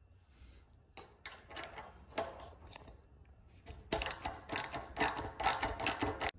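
Socket ratchet clicking as a fuel tank mounting bolt is turned out: short runs of clicks at first, then a faster, louder run from about four seconds in.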